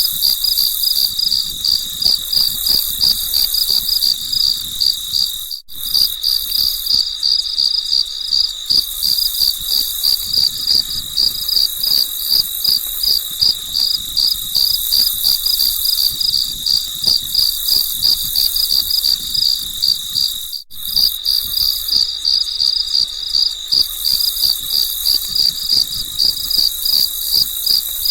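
Crickets chirping in a steady, even rhythm of about four chirps a second, a high-pitched nature ambience. It drops out for an instant twice, about five seconds in and again near twenty seconds in.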